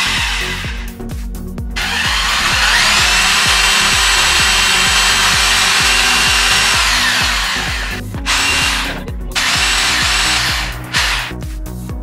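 Electric hand drill boring into an aluminium heat-sink bar. Its motor whine rises as it spins up about two seconds in, runs steadily for about five seconds and falls away, then a shorter second run follows. Background music with a beat plays underneath.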